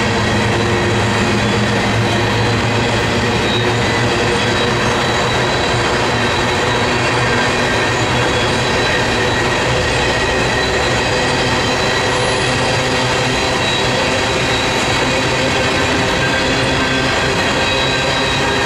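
Freight train of coal hopper cars rolling past on the rails: a steady rumble of wheels with a continuous high-pitched wheel squeal made of several steady tones.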